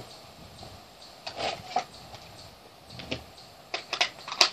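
Handling noise from a rifle being picked up: a few soft rustles and knocks, then a quick run of sharp clicks near the end as the rifle is lifted and handled.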